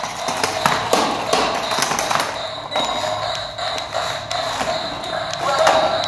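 Two toy remote-control stunt cars running on a tile floor: their small electric motors give a steady whine while the plastic bodies and rubber wheels knock and clatter on the tiles many times as the cars flip and spin.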